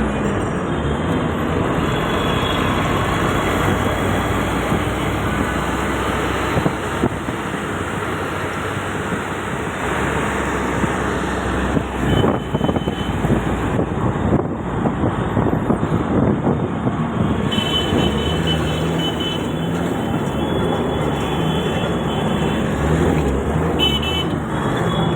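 Train running along the track with a steady rumble and clatter, with brief high-pitched tones about halfway through and again near the end.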